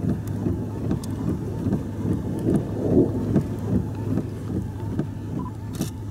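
Wind buffeting the microphone in uneven, gusting rumbles over a steady low hum from a vehicle.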